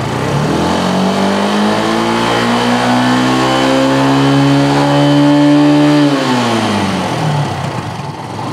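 Motorcycle engine revved: its pitch climbs steadily for about five seconds, then drops back over the next two as the throttle is released.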